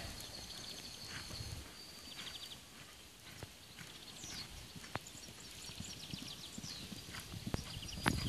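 Horse cantering on a sand arena: soft, muffled hoofbeats in a steady three-beat rhythm, with a few sharper knocks. Faint, quick high chirps sound in the background.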